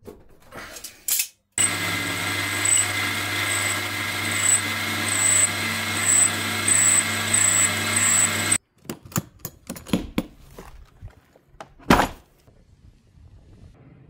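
Handheld electric power tool running at one steady speed for about seven seconds, starting and stopping abruptly. It is followed by scattered clicks and knocks, with one sharp knock near the end.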